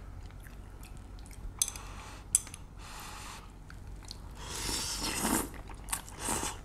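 Saucy noodles being slurped and chewed, with a long slurp about halfway through and a shorter one near the end. A couple of short clicks come early on.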